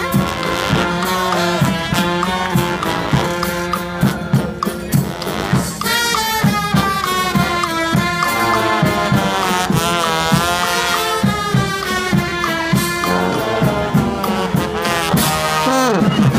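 Street brass band playing live: horns carry the tune over a steady drum beat, with several sliding, wavering horn notes in the middle.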